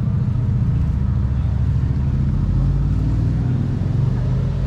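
Car engine and road noise: a steady low drone from a car driving slowly.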